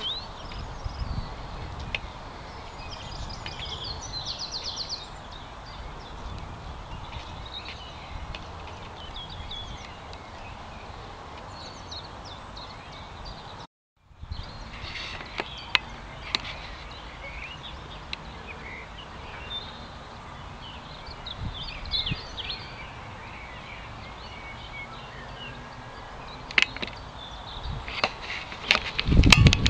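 Outdoor ambience of small birds chirping and singing over a steady background hiss. The sound cuts out briefly about halfway, and a loud low rumble on the microphone comes near the end.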